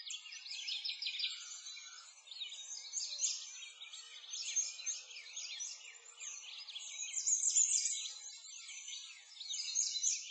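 Dense chorus of many small songbirds chirping and twittering continuously, quick high-pitched notes overlapping throughout.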